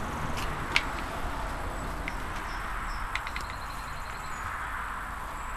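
Steady outdoor background hiss with a few small handling clicks from a powder horn being worked in the hands before loading a flintlock. There is a sharp click about three-quarters of a second in and a quick run of three clicks near the middle.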